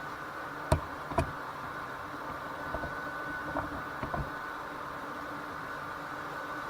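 A steady mechanical hum with a thin high tone running through it. Two sharp clicks come about a second in, half a second apart, and a few fainter clicks follow a couple of seconds later.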